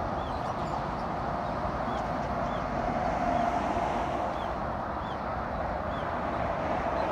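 Steady rush of expressway traffic, the tyres and engines of trucks and cars blending into one continuous noise. Over it a bird gives a short, faint chirp every half-second to second.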